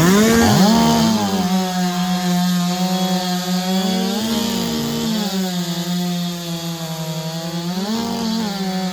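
A 90cc-class two-stroke racing chainsaw at full throttle, cutting a log in a timed race. It holds one steady high engine note under load, and the pitch rises briefly twice, about four seconds in and near the end.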